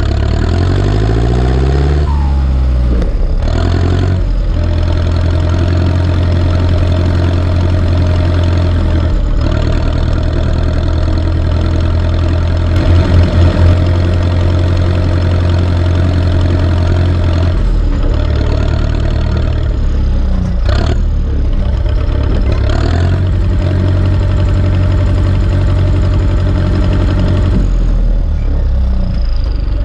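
Turbocharged four-cylinder diesel engine of an Ursus C-360 tractor running steadily and loudly. Its pitch rises over the first couple of seconds, and a few brief knocks or breaks interrupt the steady run.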